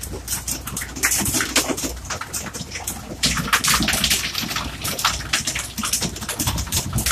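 Sea water slapping and splashing against a small fishing boat's hull, in many short irregular splashes over a low steady rumble.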